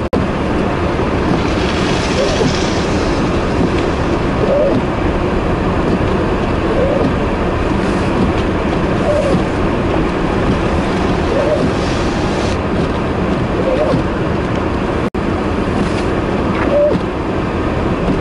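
Steady rushing vehicle and road noise, mixed with wind, on a snow-covered interstate in a heavy snowstorm. A faint short chirp repeats about every two seconds, and the sound drops out for an instant about fifteen seconds in.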